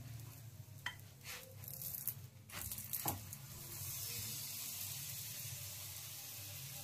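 Oil sizzling on a hot tawa under a paratha as it is brushed with oil, a few light knocks and scrapes of the brush first, then a steady hiss that sets in about four seconds in.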